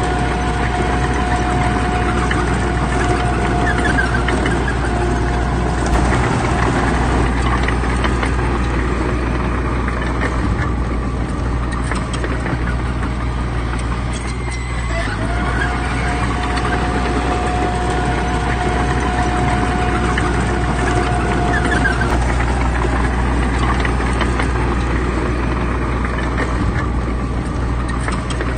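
Heavy diesel earthmoving machinery, bulldozers at work, running steadily with a deep engine drone. A held whine sounds for a few seconds at the start and again for about six seconds past the middle.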